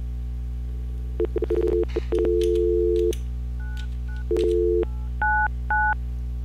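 Softphone dial tone, a steady two-tone hum that starts in quick broken bursts and then holds for about two seconds. It returns briefly and gives way to a series of short DTMF keypad beeps as a number is dialed.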